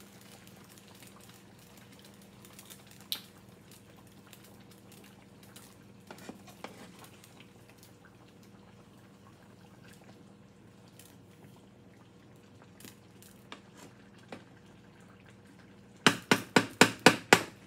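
Quiet skillet noise with a few faint clinks while potatoes are stirred into simmering chicken and sauce. Near the end comes a quick run of about eight sharp metallic taps, a cooking utensil rapped against the pan.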